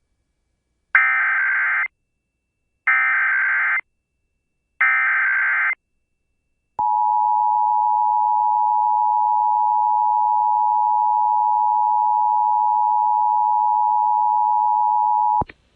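Emergency Alert System header: three roughly one-second bursts of buzzing digital data, then the long steady attention tone for about nine seconds, cutting off sharply. It marks the start of a broadcast warning, here a tornado warning.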